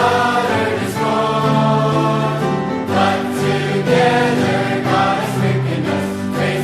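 Choir singing a hymn in parts, with long held notes that move to new pitches about every second.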